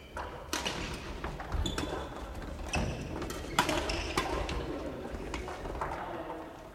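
Badminton rackets striking shuttlecocks with sharp cracks about once a second, mixed with footfalls and short shoe squeaks on a wooden sports-hall floor, all echoing in the large hall.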